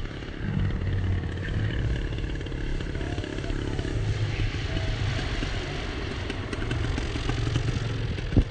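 The engine of a large radio-controlled WWII fighter model runs steadily at high power as the model makes a low pass, stepping up in loudness about half a second in. A single sharp click comes near the end.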